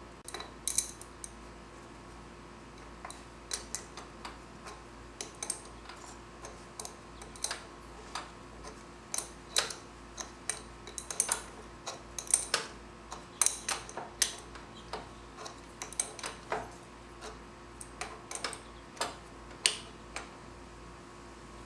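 Irregular light clicks and taps of hand tools and metal parts being handled while a garden tractor's hydraulic lift cylinder and lines are fitted, over a faint steady hum.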